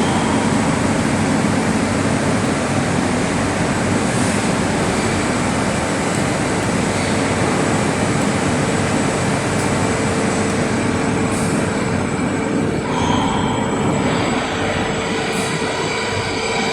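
Metal lathe running with a steady, dense machine noise; a steady mid-pitched hum joins about a third of the way in.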